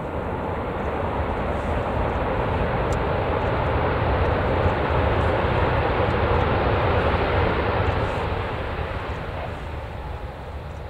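Airbus A330 Voyager tanker's twin Rolls-Royce Trent 700 turbofans running as the jet rolls along the runway, a steady jet rumble that swells to its loudest midway and fades as the aircraft passes.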